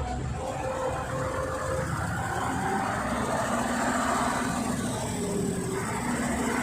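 Heavy diesel machinery running steadily: a low rumble, with a few held tones that change pitch now and then.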